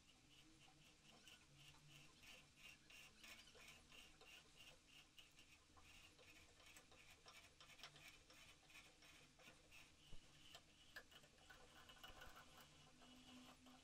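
Faint, rapid ticking and scraping of a hand threading die in a die stock being turned to cut a thread onto a metal rod held in a vise, with one sharper click about ten seconds in.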